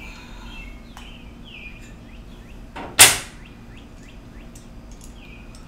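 Small birds chirping repeatedly in the background, with one loud, brief, sharp noise about three seconds in.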